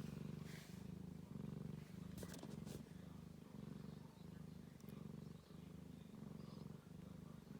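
Ragdoll cat purring softly and steadily, the purr pulsing in and out at a bit under two pulses a second.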